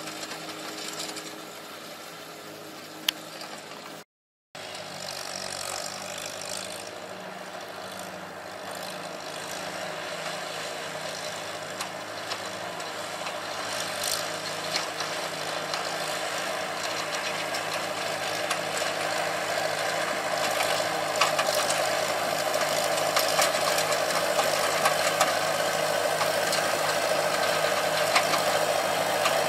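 Small vintage tractor engine running steadily while pulling a side-delivery hay rake, with the rake's tines and iron frame rattling and clicking. It gets louder toward the end as the rake passes close, and the sound drops out briefly about four seconds in.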